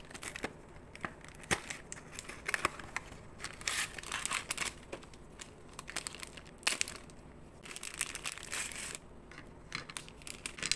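Foil-lined snack wrapper of Pepero biscuit sticks crinkled and torn open by hands in nitrile gloves: irregular crackling and crinkling with sharp snaps.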